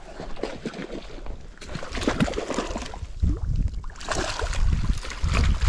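Hooked cutthroat trout splashing and thrashing at the surface in shallow water. From about three seconds in, a low rumble of wind buffets the microphone.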